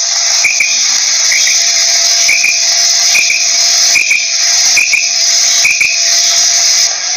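Quail calling: short, clear whistled notes repeated about once a second over a steady, high, insect-like hiss.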